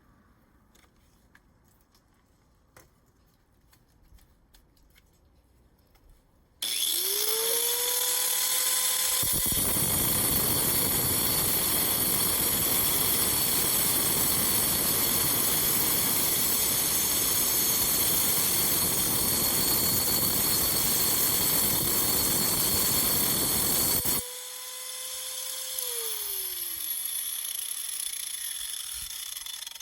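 An angle grinder starts about six seconds in and spins up, then its cutting disc bites into a geode and grinds steadily for about fifteen seconds. It then lifts off, runs free for a moment and winds down with a falling whine.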